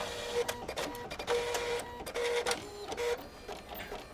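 Office printer running, its motor whining in short stop-start pulses with mechanical clicks as it prints.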